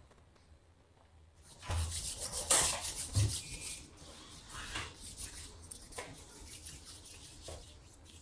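Rustling and rubbing from objects being handled, a dense cluster of scrapes and clatters starting about two seconds in, then fainter scattered rustles.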